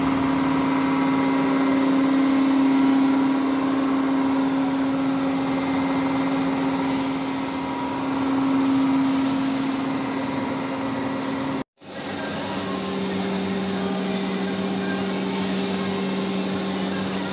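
Horizontal milling machine running with a steady hum from its spindle drive, with a few short bursts of hiss in the middle. About two-thirds of the way through the sound cuts out for an instant and gives way to a lower steady hum as a twist drill bores into a steel part with coolant flowing.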